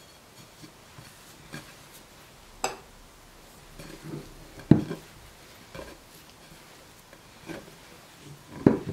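A glass mixing bowl knocking on the table a few times while risen yeast dough is tipped and scraped out of it onto a pastry mat, with soft thuds of the dough landing. The loudest knocks come about halfway through and near the end.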